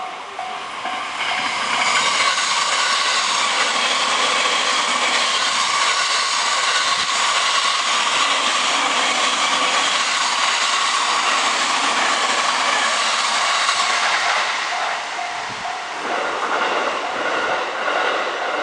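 JR electric commuter train passing a level crossing, a steady loud rush of wheels on rail with clickety-clack, building about a second and a half in and easing off after about fourteen seconds. Near the end, the level crossing's alarm bell is heard again ringing in a quick repeating ding.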